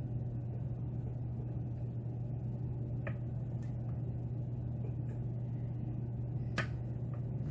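Steady low hum with two faint clicks about three and a half seconds apart, from a pick and tension wrench working the pins of a lock during single-pin picking.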